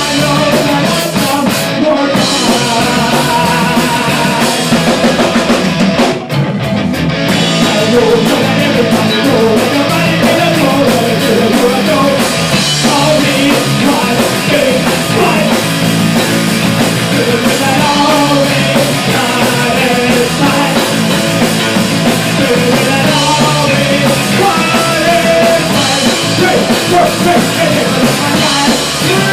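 Loud rock song with drum kit, electric guitar and singing, punk-rock in style, playing without a break.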